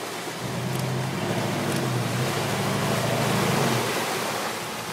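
Lifted Chevrolet K5 Blazer's engine pulling under load through deep mud ruts, a steady hum that swells and eases off about four seconds in, over a constant rushing noise of tyres churning mud and water.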